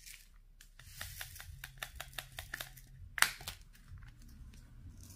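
A run of small, quick clicks and taps with some plastic crinkling: handling diamond-painting resin drills, tools and the canvas's plastic cover film. One sharper click about three seconds in stands out.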